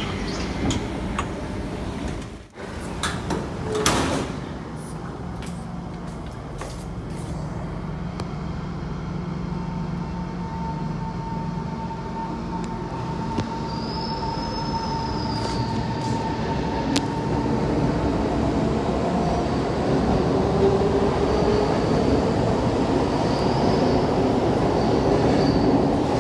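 SMRT C151 MRT train pulling out of an underground station: wheels running on the rails and the traction motors whining in rising tones as it gathers speed, getting louder toward the end.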